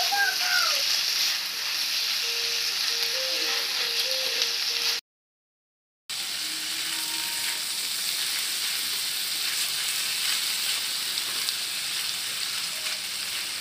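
Sliced tuhau and rattan shoots with dried shrimp sizzling in hot oil in a steel wok as they are stir-fried with a spatula, a steady frying hiss. The sound cuts out completely for about a second midway, then the sizzling resumes.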